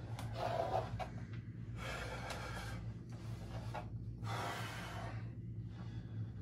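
A man breathing hard while holding bodybuilding poses: about five forceful breaths, each under a second, over a steady low electrical hum.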